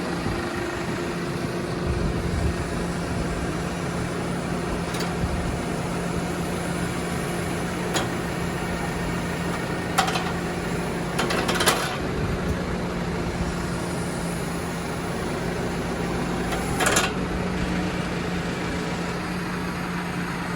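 Tractor engine running steadily at idle, with a few short sharp knocks scattered through.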